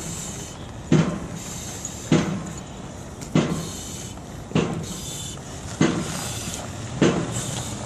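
Firefighter breathing hard through an SCBA facepiece and regulator under heavy exertion, one breath about every 1.2 seconds in a very regular rhythm, each starting sharply and fading into a hiss.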